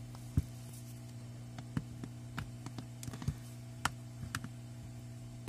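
Scattered small plastic clicks and snaps, about a dozen at irregular intervals, as a plastic pry pick is worked around the edge of a Samsung Galaxy A10's plastic back cover, unclipping its tabs. A steady low hum runs underneath.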